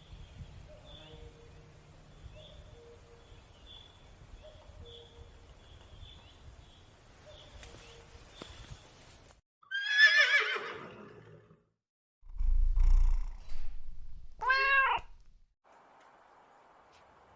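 Horse whinnying: a loud call about ten seconds in that falls in pitch with a shaky tremolo, then a low rumble and a second, shorter wavering call about four seconds later. Before it there is only faint outdoor ambience with small repeated chirps.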